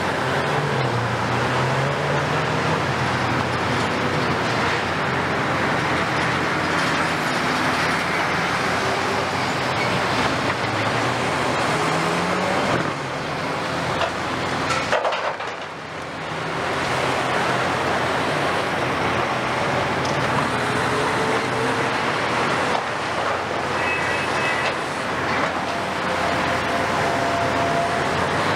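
Diesel engines of heavy demolition excavators running under load, their pitch rising and falling as they work, over steady road traffic noise. A lorry passes late on.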